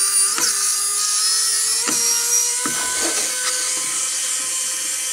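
Small electric power drill running with a steady high-pitched whine, backing a servo mounting screw out of the plywood servo tray, with a few clicks along the way.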